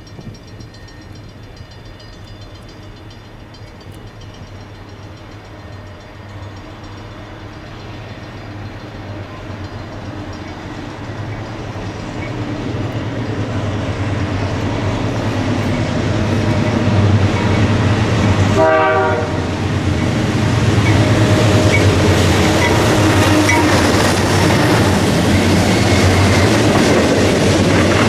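Diesel freight train led by a GE Dash 9-44CWL and an EMD SD70M-2, growing steadily louder as it approaches and then passing close, with a short horn blast about two-thirds of the way through. The freight cars follow with wheels clacking over the rails.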